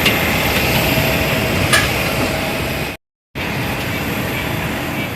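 Steady rumble inside a moving vehicle, with a single short click a little before two seconds in. The sound drops out completely for a moment just after three seconds, then the same steady rumble resumes.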